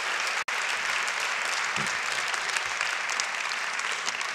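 Audience applauding, many hands clapping steadily; the sound cuts out for an instant about half a second in.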